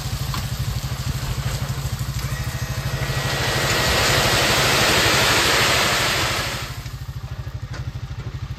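Motor tricycle dump truck's engine running steadily with a rapid, even beat, while gravel slides off its tipped-up bed as a rush of noise that swells and fades between about three and seven seconds in.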